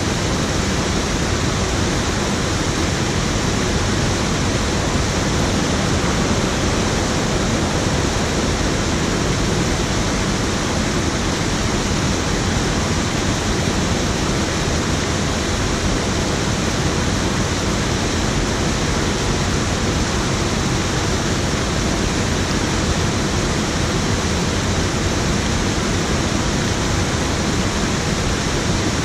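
Water pouring over a low river weir into the pool below: a steady, unbroken rushing.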